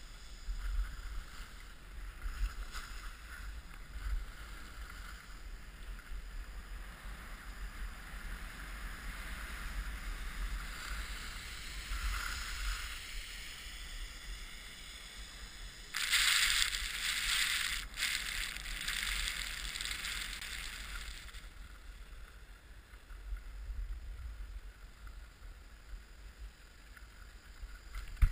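Skis hissing and scraping over packed snow on a downhill run, with wind buffeting the microphone. The scraping gets louder for about five seconds past the middle, and a single sharp knock comes at the very end.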